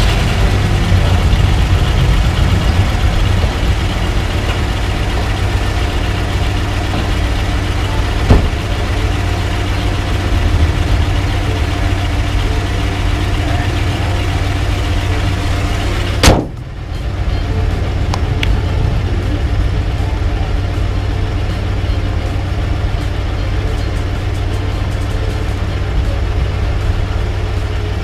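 1994 Ford Bronco's V8 engine idling steadily. There is a sharp click about eight seconds in, and a little past halfway the hood is slammed shut with a loud bang.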